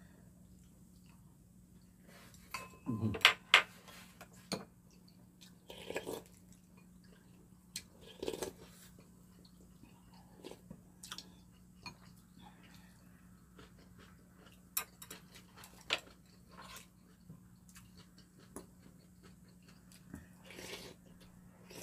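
Spoons and chopsticks clicking and scraping against ceramic bowls as two people eat, with chewing sounds in between. The loudest clicks come in a quick cluster about three seconds in.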